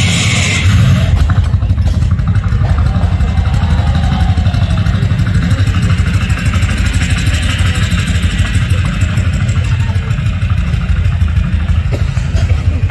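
A man's vocal imitation of a train, amplified through a microphone and PA loudspeakers: a steady, fast, rhythmic chugging that opens with a brief hiss.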